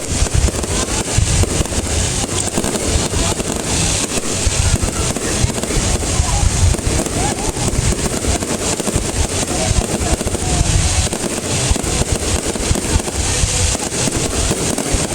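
A fireworks display going off: dense, continuous crackling and popping, many small bursts overlapping with no break.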